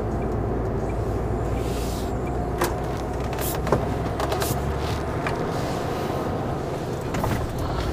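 Tipper lorry driving along with its diesel engine running steadily, heard from inside the cab, with a few short knocks.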